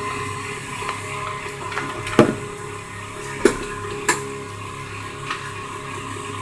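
Crown radio-cassette's speaker giving a steady hiss and hum, with sharp crackling clicks about two, three and a half and four seconds in as the volume potentiometer's connections are touched. Sound getting through to the speaker this way points to a faulty volume control.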